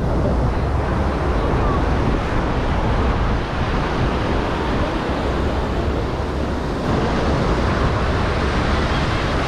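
Ocean surf washing on a sandy beach, mixed with wind buffeting the microphone in a steady low rumble.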